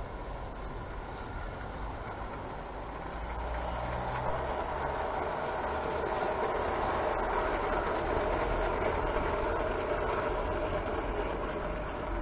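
Model locomotive and goods wagons running along garden railway track, a steady motor and wheel hum that grows louder as the train passes close, then eases slightly near the end.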